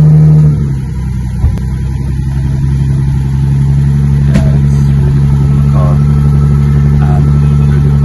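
Lamborghini Countach's V12 engine running just after start-up: held at a steady higher speed, it drops to a lower even idle about half a second in. Two sharp knocks are heard, about a second and a half and about four seconds in.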